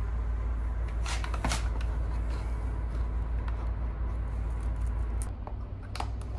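A hard plastic motorcycle front fender being handled and pushed into place under the fork's lower clamp: a few light plastic clicks and knocks, the sharpest about a second in, over a steady low hum.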